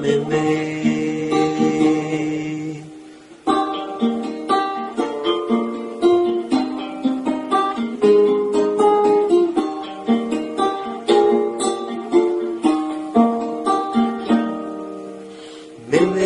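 Instrumental passage of a song: a plucked, guitar-like string instrument plays a melody over chords with a steady beat, with no singing.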